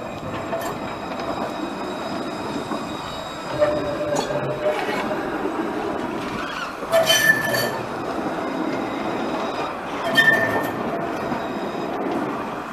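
Alstom Citadis tram passing close by at low speed, its wheels rolling with a steady rumble. The wheels squeal in short bursts three times, at about 4, 7 and 10 seconds in, with a few metallic clicks, typical of steel wheels on a curve.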